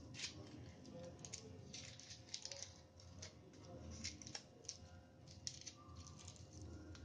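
Faint crinkling and crackling of a foil wrapper as it is folded and pressed around a chocolate bar by hand, in short irregular rustles.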